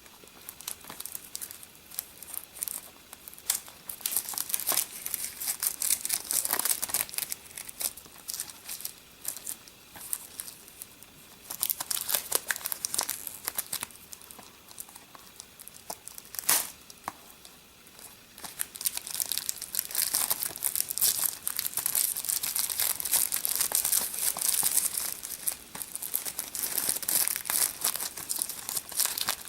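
Plastic shrink-wrap being torn and crinkled off a DVD case, in bouts with short pauses, with one sharp snap about halfway through and steady crinkling near the end.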